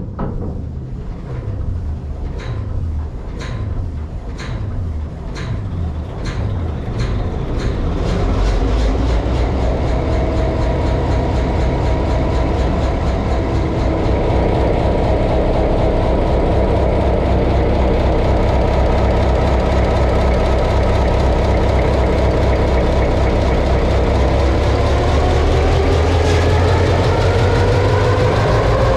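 EMD two-stroke V16 diesel engine of a series 661 (G16) diesel-electric locomotive being started: rhythmic clattering beats about two a second while it turns over, then it fires about eight seconds in and settles into a loud, steady run. Engine speed rises near the end.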